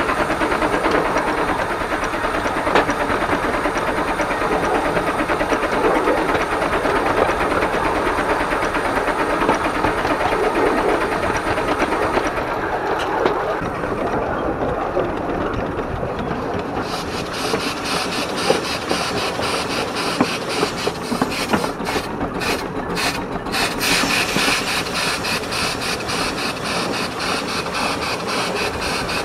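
12¼-inch gauge steam locomotive running along the line, with steam hiss over the rumble and clatter of the train. Partway through, a louder, brighter hiss comes in and stays.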